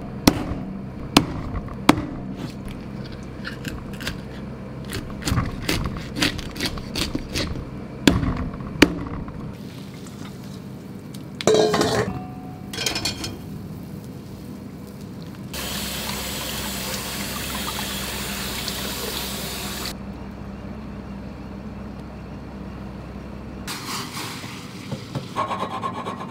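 A kitchen knife knocking repeatedly on a plastic cutting board, with wet handling, as a splendid alfonsino's head is cut up. After a break come water sounds, including about four seconds of steady rushing water a little past the middle.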